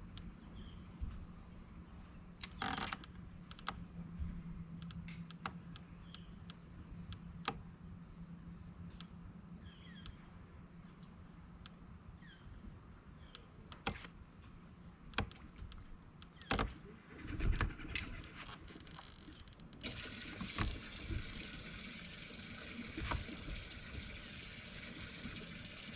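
Electric trolling motor humming for the first several seconds, with scattered knocks and clicks from gear handled in a small fishing boat. A steady hiss sets in about twenty seconds in.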